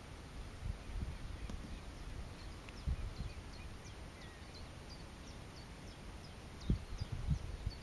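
A small bird calling over and over with short, high chirps, about two a second, over a low outdoor rumble with a few dull thumps.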